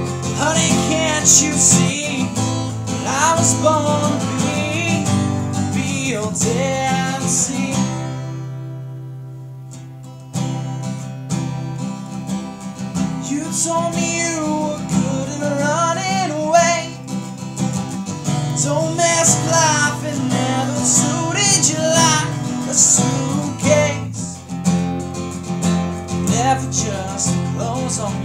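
Acoustic guitar strummed steadily, with a man's voice singing over it at times. About eight seconds in the strumming stops and a chord rings and fades for about two seconds, then the strumming starts again.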